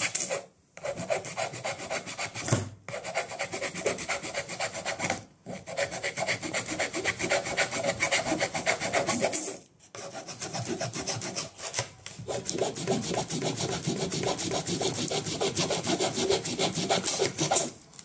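A hand file rasps back and forth in quick strokes along the edge of a Seagate 16 TB hard drive's sealed metal case, wearing the lid open. The runs of strokes break off briefly several times.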